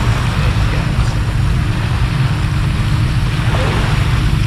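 Wind rumbling on the microphone, a steady low buffeting with an even hiss above it.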